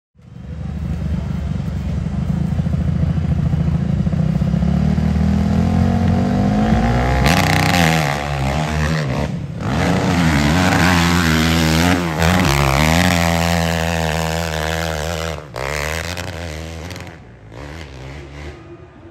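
Hillclimb dirt bike engine running steadily at the starting gate, then opened up hard for the climb: the revs rise and fall several times, with a few brief breaks in the sound. It fades away over the last couple of seconds as the bike climbs off up the hill.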